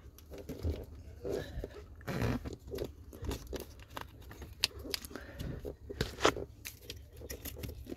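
Plastic trim piece being pushed and worked into place under a car's dashboard by hand: irregular scraping and rubbing of plastic, with a few sharper clicks in the second half.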